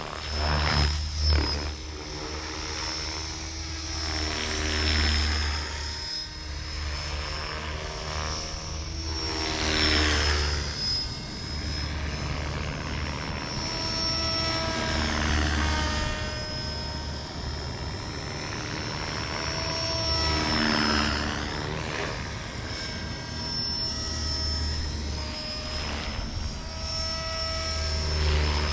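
Electric 500-size RC helicopter (Beam Archon SE with a BMH 4015 brushless motor on 6S) in flight: a steady high motor whine over the low chop of the rotor blades, swelling and gliding in pitch several times as it moves about the sky.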